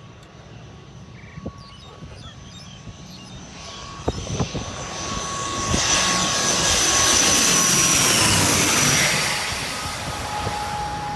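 ATR 72 twin-turboprop airliner passing low overhead on its landing approach: the engines and propellers grow louder, peak for a few seconds with a steady whine that drops slightly in pitch as it goes by, then fade.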